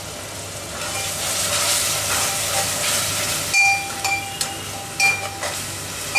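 Wet ground masala paste sizzling in hot oil and fried onions in an aluminium pot. From about halfway, a steel spoon stirs it, clanking against the pot four or five times with a short metallic ring.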